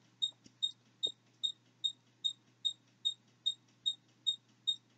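Short high-pitched chirps repeat evenly, about two and a half a second, over a faint steady low hum.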